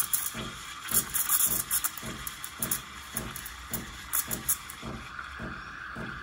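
Saeco SE50 steam wand hissing in a stainless pitcher of whole milk, with repeated sharp crackling chirps as the tip draws air into the milk, giving way about five seconds in to a smoother, steadier hiss as the milk is texturing. A low pulsing runs underneath about three times a second.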